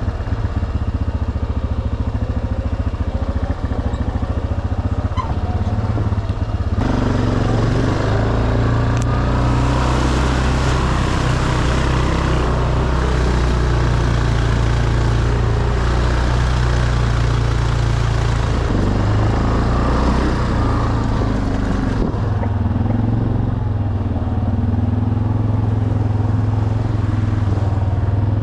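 ATV engine running under load while towing a kayak trailer. About seven seconds in it gets louder and rougher, with added rushing and rattling noise, and it settles back near the end.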